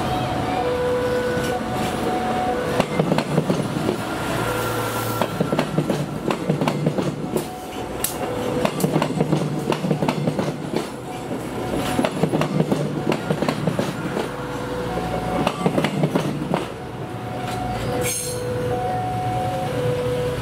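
KAI commuter train passing over a level crossing, its wheels clattering loudly over the rail joints above a low engine hum. A repeating two-note crossing warning alarm sounds throughout, clearest at the start and again near the end when the train noise drops.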